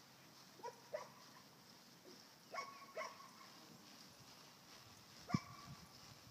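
A dog barking: five short barks, two quick pairs and then a single louder bark, with pauses between.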